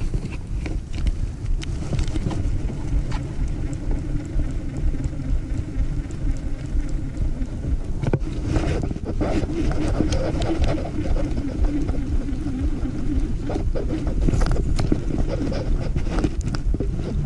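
Steady wind and water noise around a small fishing boat, with scattered light clicks and rattles of rod and reel handling as a lure is cast and reeled in. A low, even hum joins in over the middle stretch.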